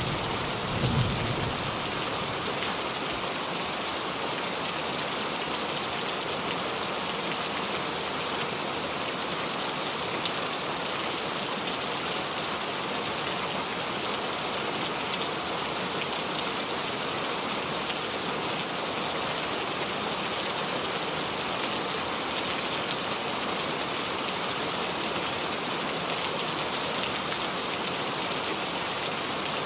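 Steady heavy rain drumming on a roof. A thunder rumble fades out in the first second or so.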